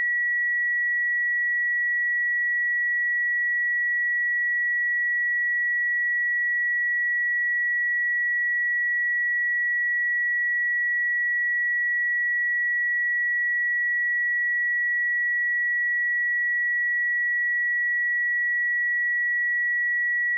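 Steady 1931 Hz sine-wave test tone, a single pure high-pitched note held at constant level.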